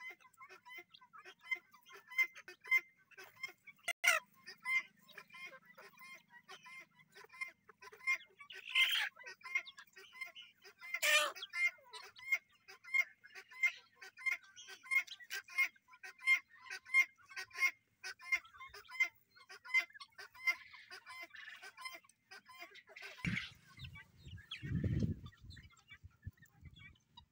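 Farm poultry calling: short calls repeated rapidly throughout, with a few louder calls. There is a low rumble near the end.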